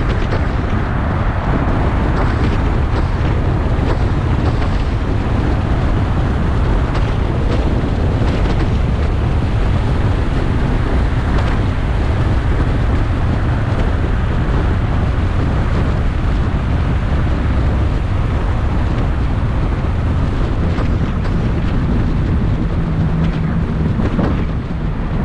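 Car driving, with steady road and wind noise heavy in the low end and wind buffeting the microphone. A low steady hum comes in about four seconds before the end.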